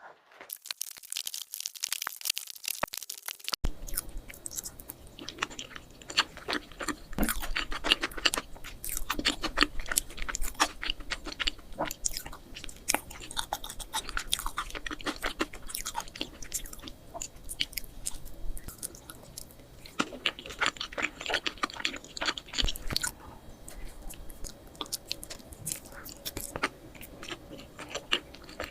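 Close-miked mukbang eating sounds: steady chewing of soft chocolate cake with irregular crunchy, clicky bites. A few seconds in, the background changes and a faint low hum appears under the chewing.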